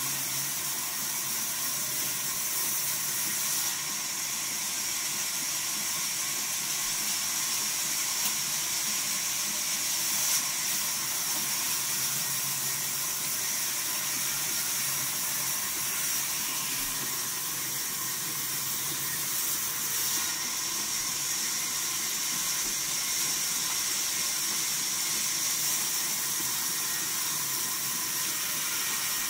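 Vertical band saw mill running and ripping a timber plank lengthwise, a steady high hiss of the blade cutting through the wood.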